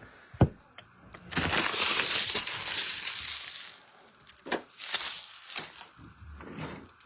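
Foil trading-card pack wrapper being crinkled and torn open: a loud stretch of crackling plastic lasting a little over two seconds, then a few short rustles and clicks of handling.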